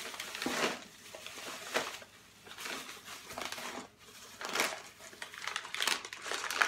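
Plastic bubble wrap crinkling in irregular crackles as it is pulled out of a cardboard box.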